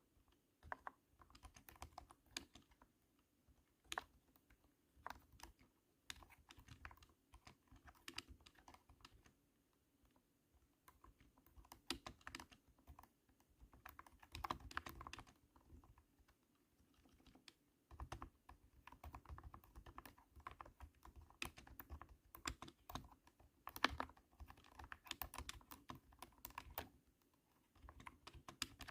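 Typing on a cat-shaped mechanical keyboard: irregular runs of thunky keystrokes with short pauses between bursts.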